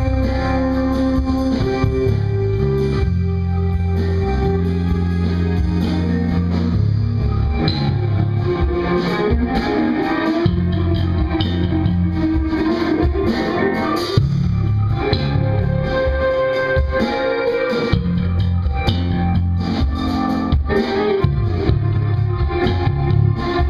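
Live improvised jazz jam by a small band: electric bass holding and shifting low notes under electric guitar, with keyboard, and light percussion ticking in the high end.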